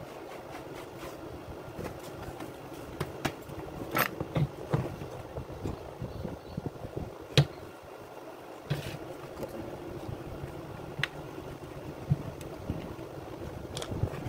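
Scattered clicks and knocks as the plastic-bodied Makita UC4551A electric chainsaw and hand tools are handled and turned over on a workbench, over a steady background noise; the sharpest knock comes about halfway through.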